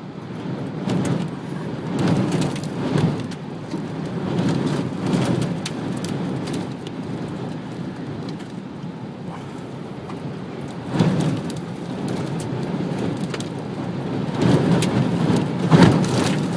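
Heavy rain and wind from a tornado's storm, the wind rising and falling in gusts and the rain pelting hard on surfaces around the microphone.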